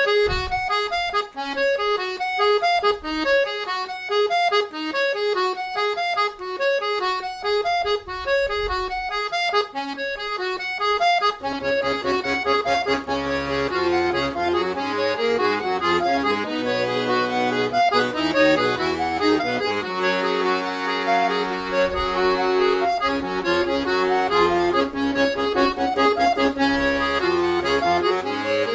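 Accordion (sanfona) playing an instrumental tune: a melody of short, quick notes at first, then from about eleven seconds in, held chords and a bass line join under it.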